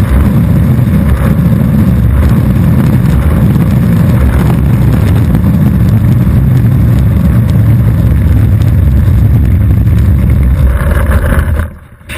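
Longboard wheels rolling over asphalt, a loud, steady, gritty rumble picked up right at the board. It drops off sharply near the end.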